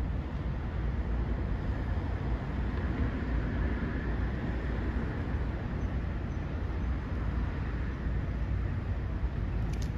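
Steady low vehicle rumble, with a few faint clicks near the end.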